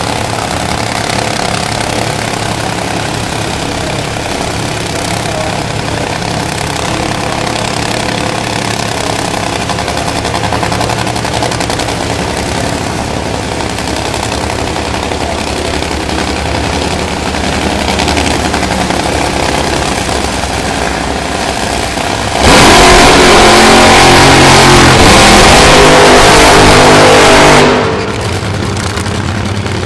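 Supercharged nitromethane V8 engines of Top Fuel dragsters running at idle with a steady, lumpy note. About 22 seconds in, one engine goes to full throttle for a burnout of about five seconds, so loud that the recording clips. It then drops back to idle.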